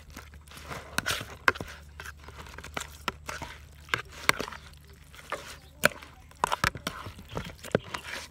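A metal spoon scraping and knocking against a wok as raw chicken pieces are turned in oil: irregular sharp clinks and short scrapes.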